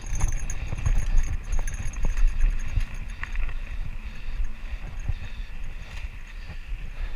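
Mountain bike rolling over a rough, rocky dirt trail: low tyre rumble with frequent small knocks and rattles from the bike jolting over bumps.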